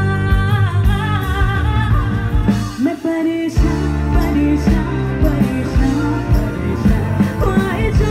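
Live band playing a song: a woman singing over electric guitar, bass and drums. The drums and bass stop for about half a second around three seconds in, then come back in.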